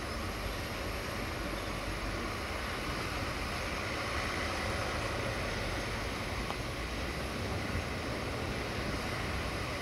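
Roman Diesel tipper truck's diesel engine running steadily as it drives along a dirt track, a low rumble under an even hiss.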